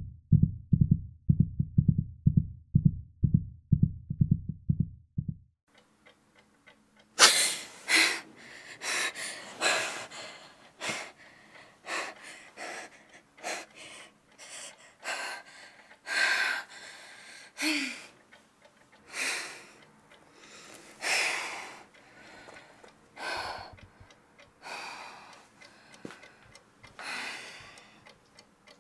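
Rapid low heartbeat thumps, about three a second, stop after about five seconds. After a short pause comes a young woman's heavy, ragged breathing, with uneven gasping breaths every second or two, as if waking in distress.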